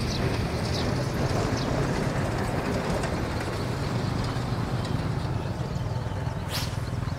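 Wind rumbling steadily on the microphone across an open pond bank. About six and a half seconds in, a long fishing rod makes a short, sharp swish as it is cast, followed by quick light ticks.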